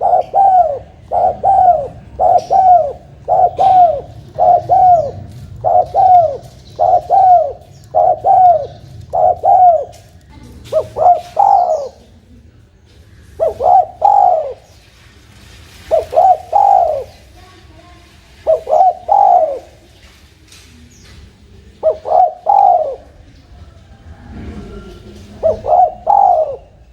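Spotted dove cooing over and over in low, arched coos. It starts with a quick run of paired coos, then after about twelve seconds settles into spaced phrases of two or three coos every few seconds.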